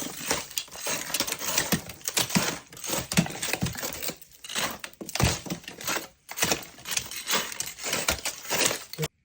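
Loud, irregular crinkling and rustling, like material being crumpled or handled close by, coming in uneven surges; it starts abruptly and cuts off suddenly about nine seconds in.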